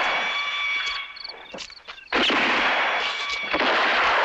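Sound-art composition of harsh noise blocks over faint steady high tones: the noise thins out about a second in, a couple of sharp clicks follow, and it cuts back in suddenly just after two seconds.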